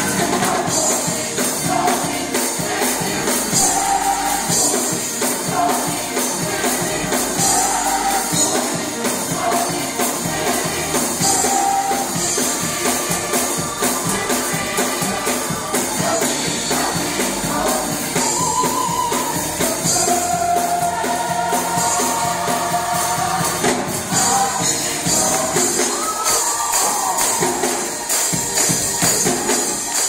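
Gospel choir singing an upbeat song in unison, over a fast, steady tambourine beat with drums.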